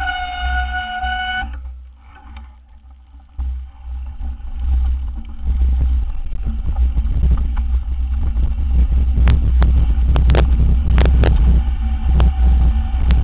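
Mountain bike rolling fast down a loose gravel road, heard from a bike-mounted camera: steady rumble of wind and tyres, with sharp rattles and knocks over bumps in the second half. A steady high squeal with overtones sounds at the start, cuts off about a second and a half in, and comes back near the end.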